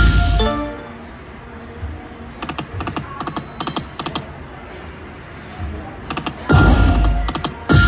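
Slot machine sounds: short electronic chime tones at the start, then a run of quick clicks as the reels spin, and a loud burst of sound effects near the end.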